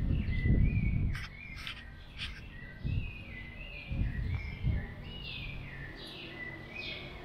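Several birds chirping and calling, many short overlapping notes that slide down in pitch. Low muffled thumps and rumbling underneath, loudest in the first second, with a few more around the middle.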